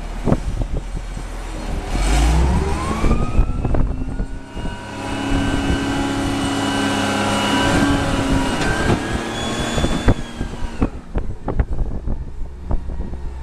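Wheel loader engine revving up about two seconds in as the full bucket of dirt is raised, holding high revs, then dropping back near the end. Scattered knocks and rattles run under it.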